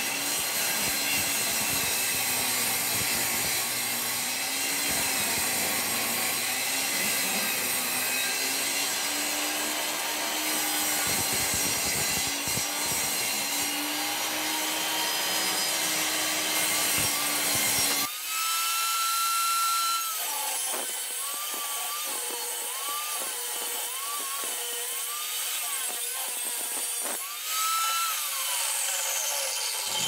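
Table saw ripping the tongue off a red oak flooring board, the blade cutting with a steady noise and the motor's hum sagging and recovering under the load. About two-thirds of the way in the sound turns abruptly thinner, leaving a higher whine that dips and rises several times.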